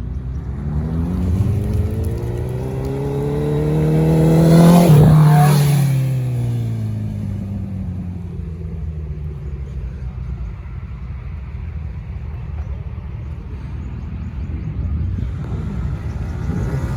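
A motorcycle engine passing by: its note rises and grows louder to a peak about five seconds in, then drops in pitch and fades as it goes past, over a steady low rumble.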